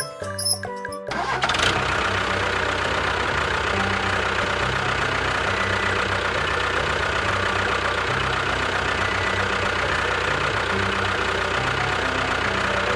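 A small motor starts about a second in and runs steadily, then stops at the very end.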